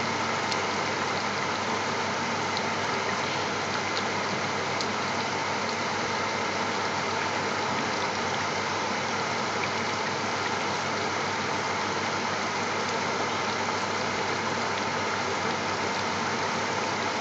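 Steady hum and hiss of kitchen equipment running without change, a constant low hum under an even hiss.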